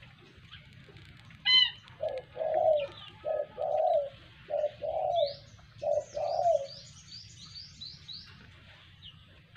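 A dove cooing: a run of about eight low coos in short groups over some five seconds. A single sharp call comes just before the cooing starts, and a small bird chirps in a quick run of high notes near the middle.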